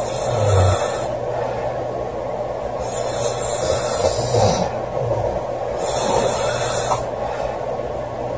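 A girl snoring in her sleep: slow breaths about every three seconds, each with a breathy hiss, and a short low snore about half a second in and again about four seconds in.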